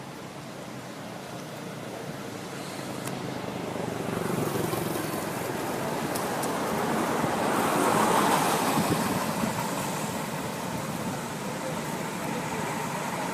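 A road vehicle passing, its noise swelling to a peak about eight seconds in and then fading.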